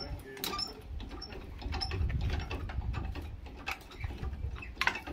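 Irregular sharp metal clicks and clanks of a high-lift ratchet-bar jack being worked under a wooden shed frame, over a low rumble.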